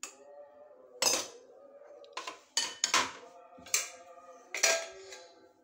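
Stainless steel kitchen vessels and a lid knocking and clinking against each other. There are about six knocks in four seconds, each leaving a short metallic ring.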